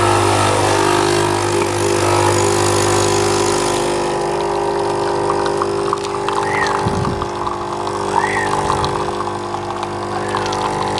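Nespresso capsule coffee machine brewing coffee into a cup, its pump buzzing steadily.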